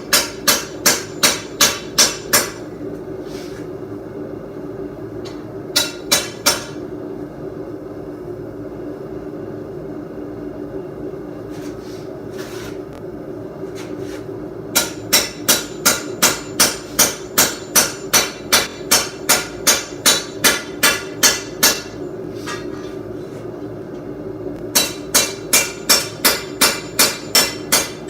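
Hand hammer striking hot steel on an anvil in runs of ringing blows, about three a second, with pauses between runs, as a blade is forged. A steady hum from the running forge goes on underneath.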